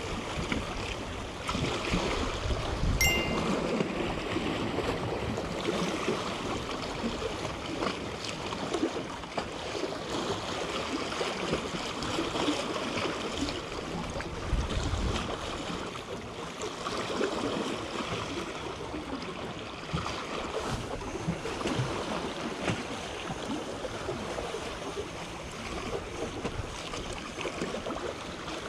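Small sea waves lapping and splashing against shoreline rocks, a steady wash with many small crackles, with gusts of wind buffeting the microphone about three seconds in and again around the middle.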